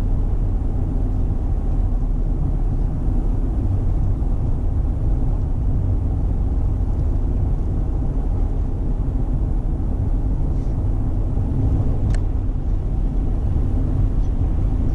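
Steady low rumble of a Chevy Silverado pickup's engine and tyres at highway speed, heard inside the cab, with one faint click about twelve seconds in.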